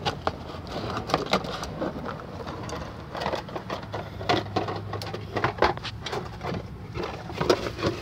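Irregular light clicks, taps and knocks of brake parts and tools being handled, with no steady machine sound.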